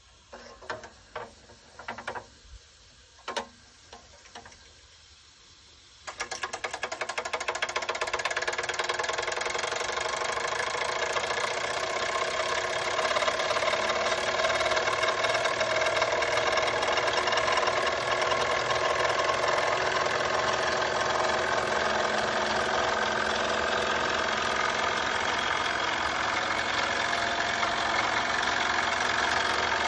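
Doll & Co 348/5 toy steam engine: a few light clicks, then about six seconds in it starts running steadily with a fast, even beat.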